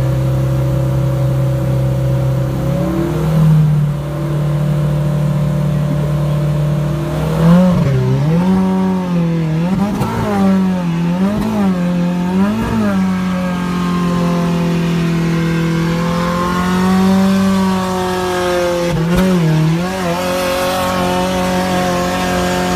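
Off-road 4x4 pickup's engine running at a steady pitch under load, stepping up a little about three seconds in, then revved up and down in about five quick surges as the truck crawls through a deep dirt trench. It settles back to a steady pitch, with a couple more brief revs near the end.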